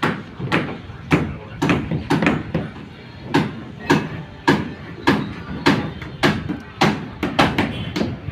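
Steady, rhythmic pounding: sharp blows about two a second, evenly spaced, with softer voices underneath.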